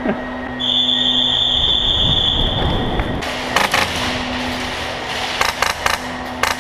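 A steady high-pitched tone held for about two and a half seconds, then bursts of sharp cracks from airsoft guns firing, in two quick groups about two seconds apart.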